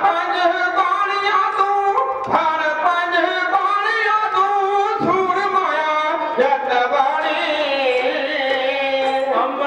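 Sikh dhadi group singing with a bowed sarangi, and dhadd hand drums struck now and then.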